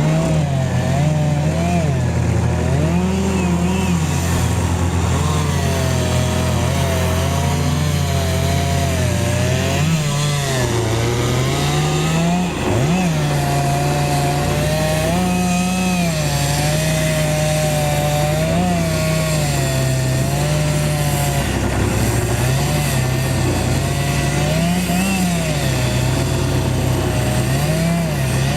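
Two-stroke chainsaw running hard through a tree trunk, its engine pitch wavering up and down as the chain loads and frees in the wood.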